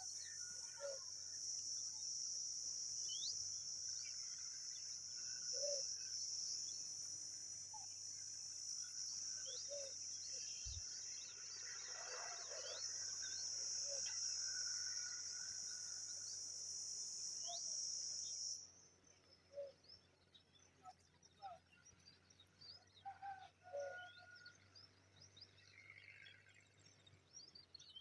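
A steady, high-pitched insect drone that cuts off suddenly about two-thirds of the way through, with short bird chirps scattered throughout.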